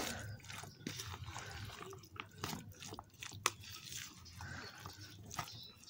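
A spoon stirring chunky chopped avocado, tomato and onion salsa in a plastic bowl: wet squishing with irregular clicks of the spoon against the bowl.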